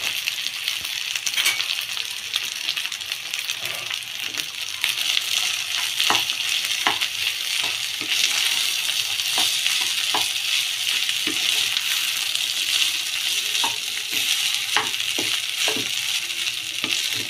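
Cooked rice sizzling in hot oil in a kadai as it is stirred and tossed with a slotted wooden spatula, with a steady hiss and irregular knocks of the spatula against the pan.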